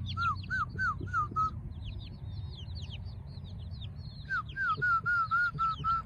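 Chicks peeping: a quick run of about five loud falling peeps in the first second and a half, then a second run near the end, with many fainter, higher cheeps throughout.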